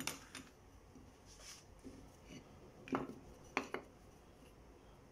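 A few light clicks and knocks of hard objects being handled: a cluster at the start and a few more about three seconds in.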